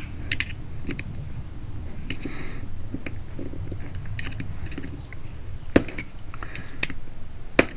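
Small hand tool scraping and clicking against the metal cap of a car trunk lock cylinder as the cap's lip is pried up around the edge, with a few sharp metallic clicks in the last two seconds.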